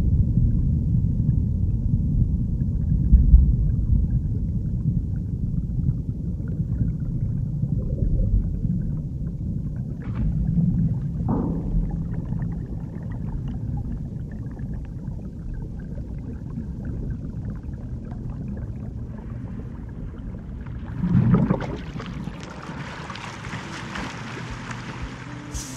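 Deep underwater rumble and gurgling of a ship's hull moving into a flooded dry dock, with a couple of short gliding groans about ten seconds in. About twenty-two seconds in, after a low surge, a brighter rushing hiss takes over as the dock's water drains away.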